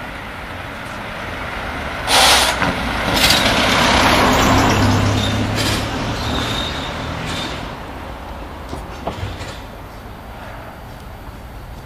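A van driving past close by: its engine and tyre noise swell over a few seconds and then fade away, with a sudden loud burst of noise about two seconds in.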